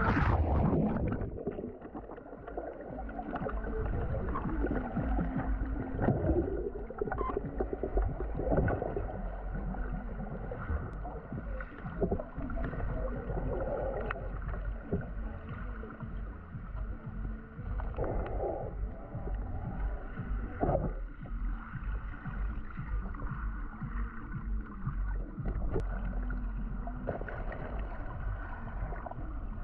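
River water heard with the microphone held underwater: a muffled rushing and gurgling with a low rumble and scattered short knocks.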